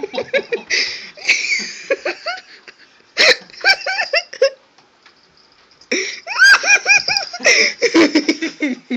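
Human laughter in several fits of quick, pitched pulses; the longest fit comes in the second half.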